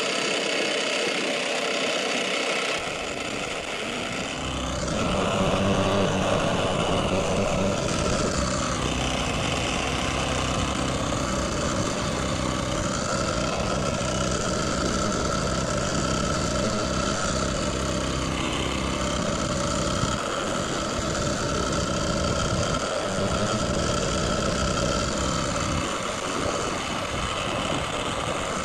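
Small outboard motor on an inflatable dinghy running steadily under way. It grows louder about four seconds in.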